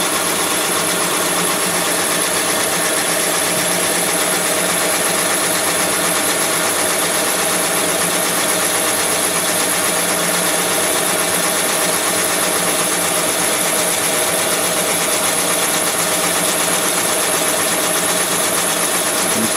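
Thompson boring bar running under power, its tool tip making a dry cut down the cylinder bore of a Mitsubishi L200 engine block. A steady, loud machine drone with a constant high whine over it, unchanged throughout.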